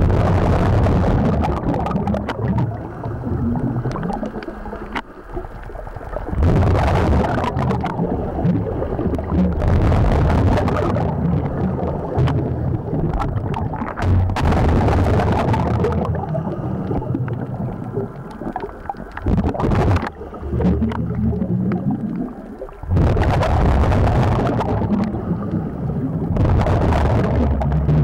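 Scuba regulator breathing heard underwater: rushes of exhaled bubbles lasting a second or two, repeating every few seconds over a steady low rumble.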